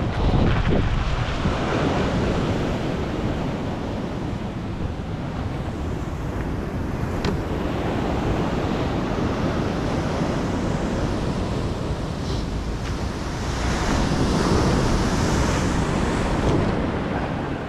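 Surf washing onto the shore, a continuous rush of breaking waves with wind buffeting the microphone. The wash swells near the start and again about fourteen seconds in.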